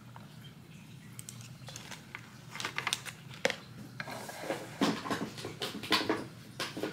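Rustling and crinkling of product packaging with small clicks and knocks as items are handled, starting about two and a half seconds in and busiest in the second half.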